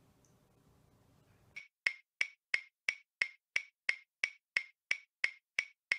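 Faint room tone, then from about one and a half seconds in a run of sharp, evenly spaced clicks, about three a second, with silence between them.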